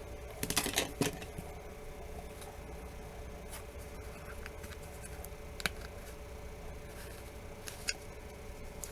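Light handling of small phone parts: a quick cluster of clicks and rustles in the first second, then two single sharp clicks later on, over a faint steady hum.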